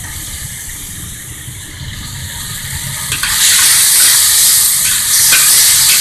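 Chicken stir-fry sizzling in a hot wok over a gas flame, with a metal ladle stirring and scraping. About three seconds in the sizzle jumps much louder and stays loud as the cornstarch sauce is added to the hot wok.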